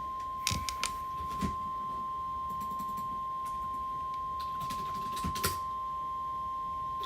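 NOAA Weather Radio's 1050 Hz warning alarm tone: one steady high tone, the alert that comes ahead of a spoken tornado warning. A few sharp clicks sound over it.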